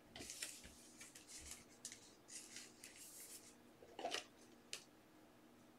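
Faint rustling and scraping of basketball trading cards being handled, slid over one another and set down on a stack, in short irregular strokes.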